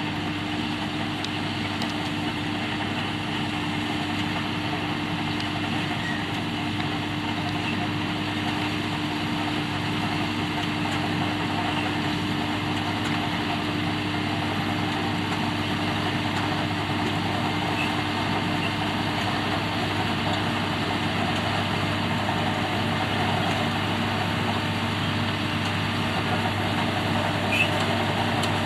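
Diesel engines of potato-harvesting machinery running steadily, a constant hum that grows slightly louder toward the end.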